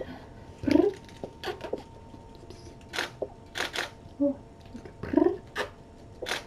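A camera shutter clicking several times, some shots in quick pairs, along with two brief low vocal murmurs from a person.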